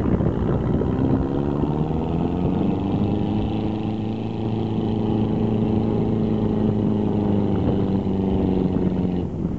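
Pickup truck engine revving hard and held at high revs while its wheels spin in loose sand, straining to pull a boat trailer. The revs climb in the first second or two, hold steady, and drop off abruptly near the end.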